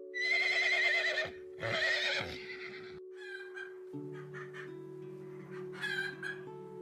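A horse whinnying: two loud, quavering whinnies in the first couple of seconds, then fainter calls later, over steady background music.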